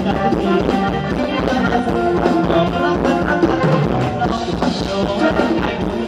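Thai ramwong dance music played by a live band, with a steady drum beat.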